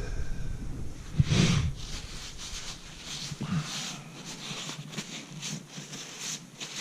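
A short breath or sniff close to the microphone, then light rustling and small clicks of handling as parts are gathered up.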